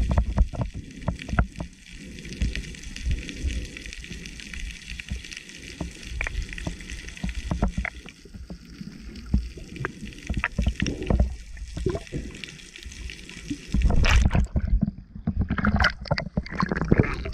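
Underwater sound picked up by a camera below the surface: a steady low rumble of moving water with many small crackles and clicks. About fourteen seconds in the camera comes up at the surface beside a rock, and splashing and sloshing of waves take over.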